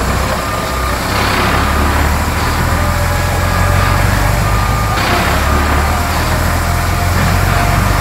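Dump truck sound effect: a diesel engine running with a steady low rumble under a continuous rushing noise, as the raised tipper bed pours out gravel.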